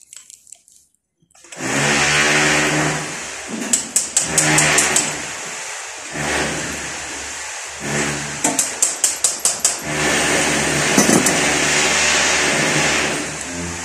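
A small power-tool motor runs in several stretches, with a steady hum and hiss, while it works on copper refrigerant pipe. It is broken twice by a run of rapid clicking.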